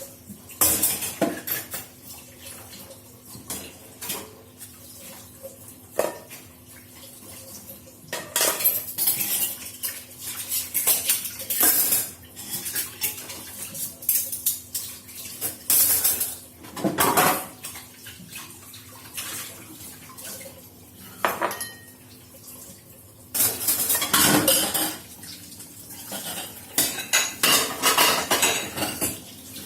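Dishes, pots and cutlery clattering and clinking irregularly as they are handled in a kitchen, with a few busier stretches of clatter.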